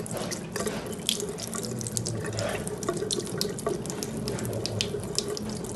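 Hot-water tap running with only a weak flow, water splashing and dripping steadily. The low flow comes with the water pump switched off.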